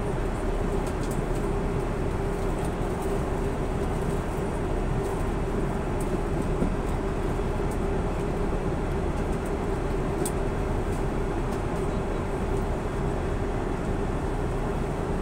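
Steady cabin noise of an Airbus A330-900neo airliner in cruise, heard from a window seat beside its Rolls-Royce Trent 7000 engine: an even rush of airflow and engine noise with a steady droning hum.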